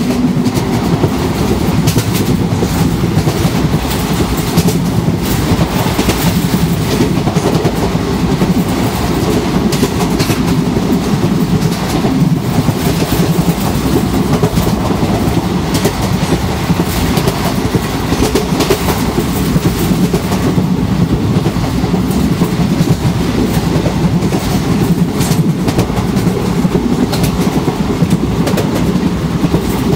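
Indian Railways express passenger coaches running at speed, heard from the open coach doorway: a steady, loud low rumble of wheels on the track, with irregular clicks and clatter from the rail joints.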